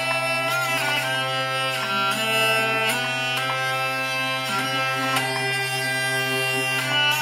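Handmade maple-and-linden hurdy-gurdy with 6 strings and 21 keys being played: the cranked wheel bows a steady low drone under a melody picked out on the keys.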